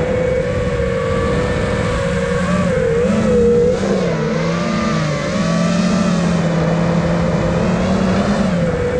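iFlight Nazgul Evoque 5 FPV quadcopter's brushless motors and propellers whining as it flies, the several pitches wavering and dipping with throttle changes around the middle before settling again.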